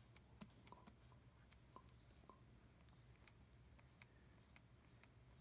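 Faint taps and scratches of a pen stylus on a drawing tablet's screen as lines are sketched: scattered light clicks, with a few short soft strokes in the second half, over a low steady room hum.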